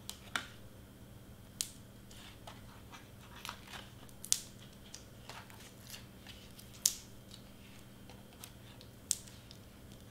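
Scattered sharp, light clicks and snips, about nine spread irregularly over ten seconds, from hands working foam adhesive squares onto a cardstock layer.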